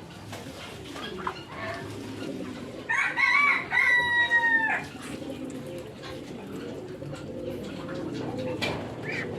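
A rooster crows once, a loud held call of about two seconds that drops at the end, over steady low cooing from pigeons or doves.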